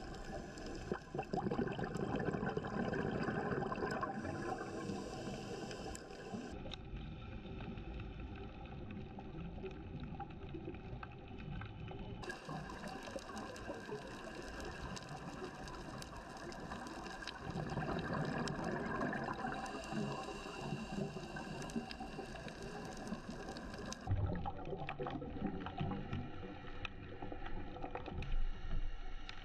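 Underwater sound from a diving camera: a steady wash of water noise peppered with fine crackling clicks, swelling louder twice, and changing abruptly at cuts about six, twelve and twenty-four seconds in.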